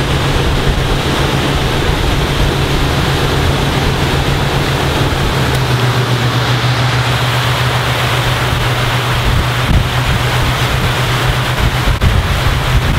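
Galeon 360 flybridge motor cruiser running under way: a steady low engine drone under rushing wind and water noise on the open flybridge.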